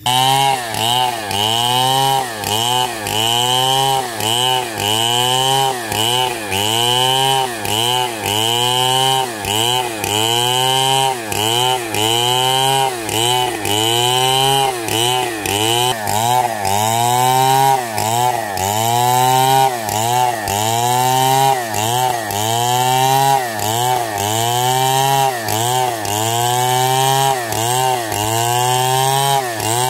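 Large Stihl chainsaw running at full throttle while ripping lengthwise along a log. The engine note dips and recovers in a steady rhythm, about every three-quarters of a second, as the chain bites into the wood.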